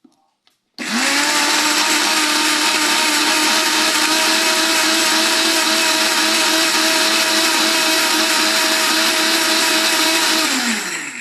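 Small electric blender blending leaves with a little water. The motor starts about a second in with a rising whine, runs steadily, then winds down near the end.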